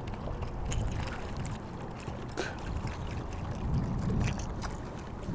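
Water lapping against the hull of a bass boat, with wind on the microphone giving a low rumble, and a few faint ticks scattered through.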